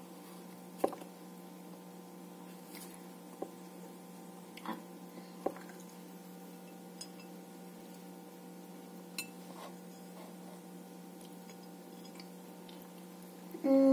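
A few short, sharp taps and clicks as apple slices are pushed onto a toothpick against a wooden cutting board, the loudest about a second in, over a steady low hum.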